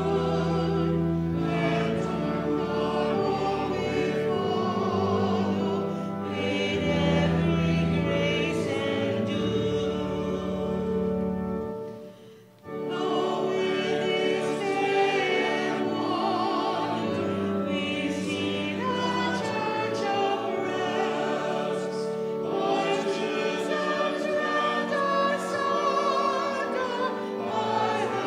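Voices singing a hymn with instrumental accompaniment, pausing briefly about halfway through between verses before the next verse begins.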